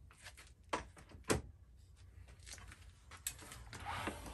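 Knocks and clicks from the aluminium frame of an iKier K1 Ultra laser engraver being handled and tipped back down onto a wooden bench, the sharpest knock about a second in. A sliding rub builds near the end as the frame is lowered.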